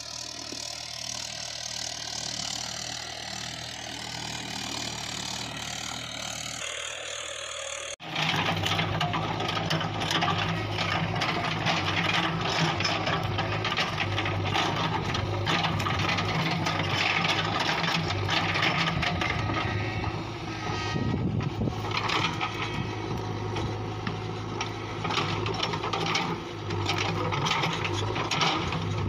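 Steady engine-like motor hum of toy construction vehicles. About eight seconds in the sound cuts to a louder hum with dense crackling and rattling.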